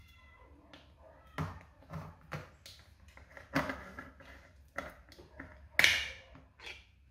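A ring-pull metal can of cat food being opened by hand: a string of clicks and taps as the tab is worked. About six seconds in, the loudest sound comes as the lid cracks and peels open. A cat meows once right at the start.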